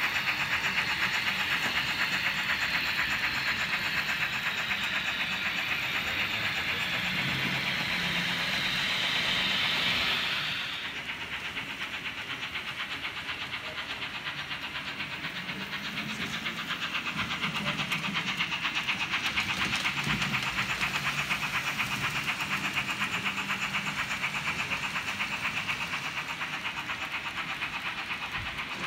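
H0-scale Märklin model BR 75 tank steam locomotive pulling its coaches over model track, with a fast, even clatter and a hiss. The hiss is loudest at first and falls away sharply about ten seconds in.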